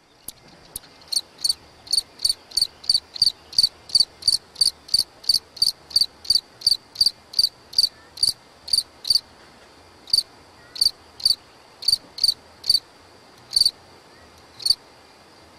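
Cricket chirping: short, high chirps at a steady pace of about two a second, then after a brief pause fewer and more irregularly spaced, the last coming about a second before the end.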